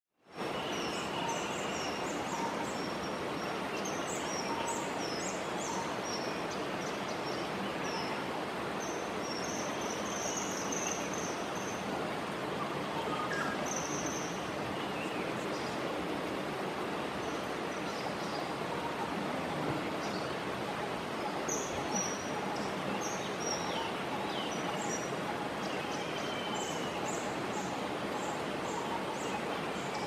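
Outdoor natural ambience: a steady hiss of background noise with many short, high bird chirps and calls scattered throughout.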